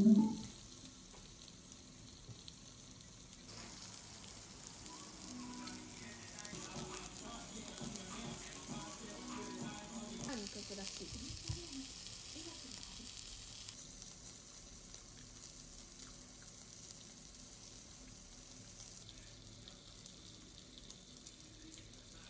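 Food sizzling as it fries in a pan, a steady crackling hiss, with a short loud knock right at the start.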